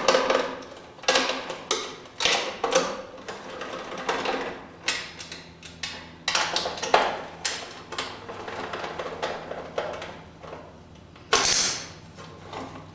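Hand tools and metal parts: an irregular run of clicks, rattles and scrapes as the screws holding a Honda mower's recoil starter are taken out and the starter housing is pulled off.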